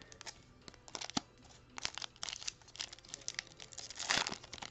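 A Topps baseball card pack's foil wrapper being torn open by hand, crinkling in scattered short crackles, loudest about four seconds in.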